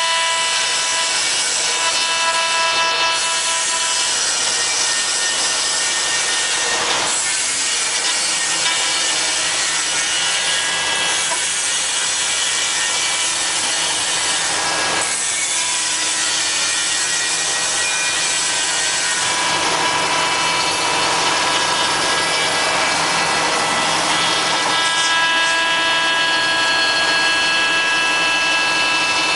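Five-axis CNC router's spindle milling wood: a continuous hiss of cutting with a steady high whine, its pitch shifting slightly about two-thirds of the way through.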